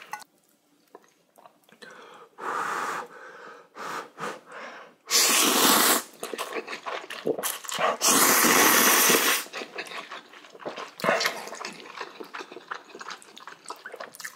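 A person slurping instant ramen noodles, with two long, loud slurps about five and eight seconds in and a shorter one near the start. Quick wet chewing clicks follow near the end.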